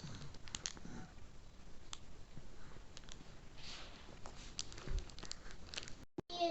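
Faint scattered clicks and soft rustling in a small room, with one soft thump a little before the end.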